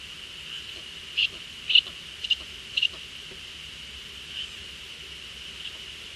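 Eurasian eagle owls at the nest, the female with her young, giving short high-pitched calls: four loud ones in quick succession from about a second in, then two faint ones later.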